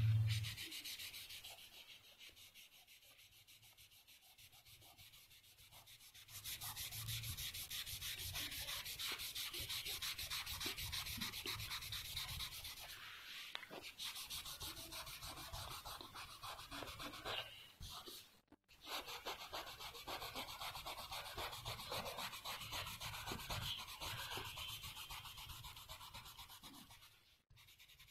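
Pencil shading on paper: fast back-and-forth scratching strokes, soft for the first few seconds, then louder, with a couple of short pauses.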